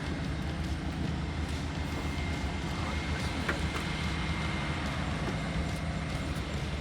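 Electric fuel pumps running with a steady hum and a thin, high whine on top.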